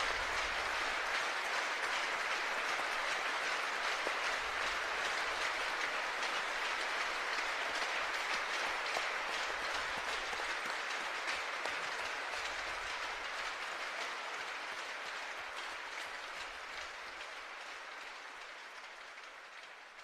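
Large arena crowd applauding steadily, a dense wash of clapping that fades away over the last several seconds.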